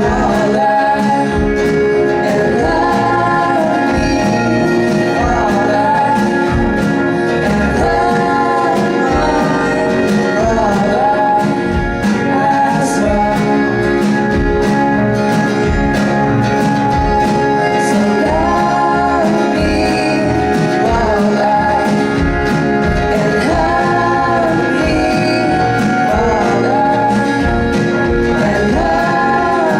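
A band playing a song: singing over a steady drum beat and instruments.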